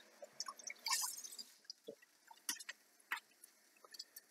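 Faint, scattered pops and crackles of hot fat spitting in a frying pan of moose sausages, with a brief sizzle about a second in.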